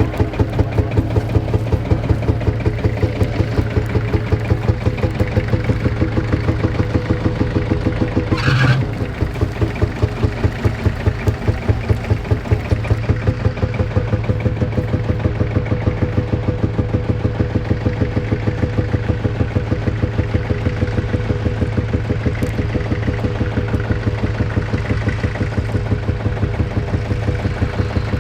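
Tractor engine running steadily under load while ploughing, with an even, slow beat. A brief louder noise breaks in about eight seconds in.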